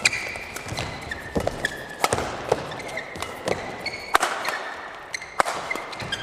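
Badminton rally: sharp cracks of rackets striking the shuttlecock several times, the loudest about two seconds apart, with short squeaks of court shoes between them.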